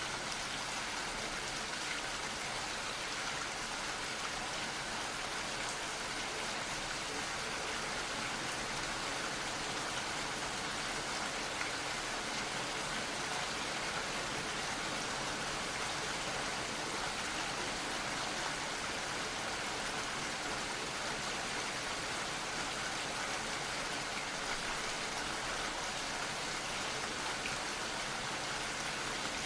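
Gentle steady rain falling, a continuous hiss of many fine drops pattering on a surface.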